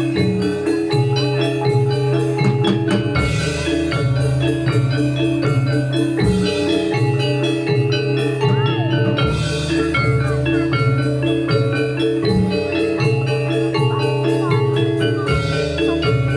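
Javanese gamelan music for a Jathilan horse dance, played loudly through a sound system: fast interlocking metallophone patterns over steady low tones, with a noisy accent about every three seconds.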